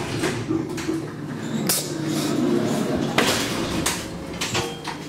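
Elevator car's sliding doors opening: a few sharp clunks from the door mechanism over a steady low hum.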